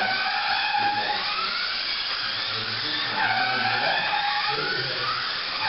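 Several Kyosho Mini-Z electric RC cars racing, their small motors whining in overlapping tones that rise and fall as the cars accelerate and brake around the track.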